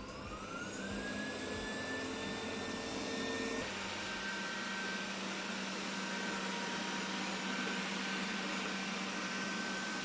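360 S5 robot vacuum's suction motor spinning up with a rising whine over the first second, then running steadily; its tone shifts a little about three and a half seconds in.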